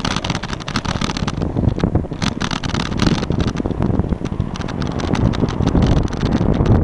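Wind buffeting the microphone of a camera on a moving bicycle, with frequent small rattling clicks from the bike as it rolls over the asphalt path.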